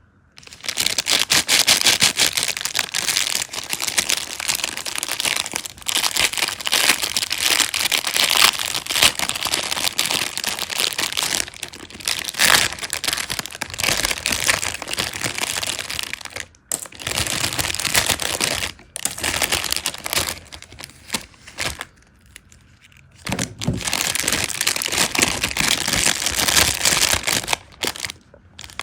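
Plastic packaging crinkling as it is handled and unwrapped, dense and crackly, with a few brief pauses; the longest pause comes a little over two-thirds of the way through.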